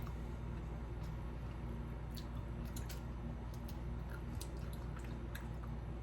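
Faint sticky, wet clicks and squishes of honeycomb being chewed, scattered over a few seconds, over a steady low room hum.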